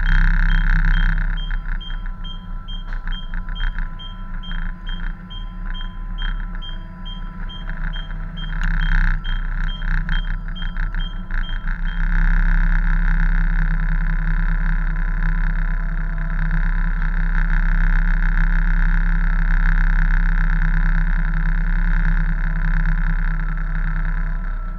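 Tug's engines droning steadily under wind and sea noise, heard from the bridge. A short high electronic beep repeats about twice a second through the first half and stops about 12 seconds in, after which the drone is louder.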